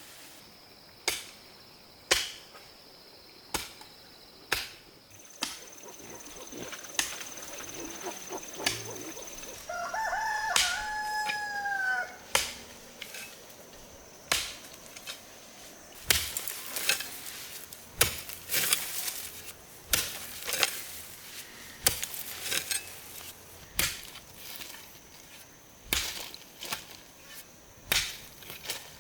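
A rooster crows once, about ten seconds in. Around it are repeated sharp knocks, one every second or two, coming more thickly in the second half.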